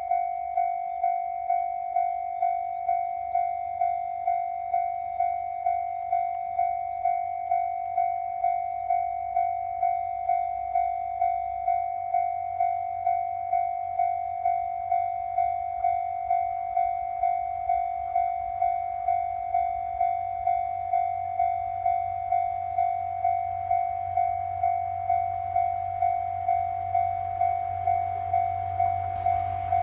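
Japanese level-crossing warning bell ringing, an electronic ding repeated steadily about twice a second.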